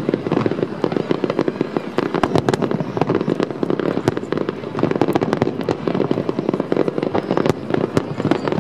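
Fireworks display: aerial shells bursting and crackling in rapid, unbroken succession, a dense barrage of bangs and pops.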